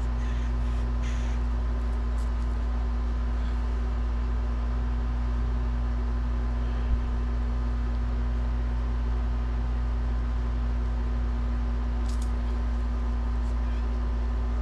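A steady low machine hum with a few fixed tones in it, typical of a household fan or air-conditioning unit running. There are a few faint clicks near the start and near the end, and a single soft low bump about seven seconds in.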